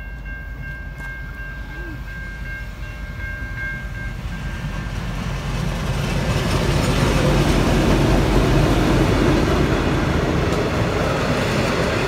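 N class diesel-electric locomotive approaching and passing, hauling passenger carriages: the engine rumble builds to its loudest about seven seconds in, then the carriages roll by with wheel noise on the rails. A faint steady high tone holds through the first four or five seconds and then stops.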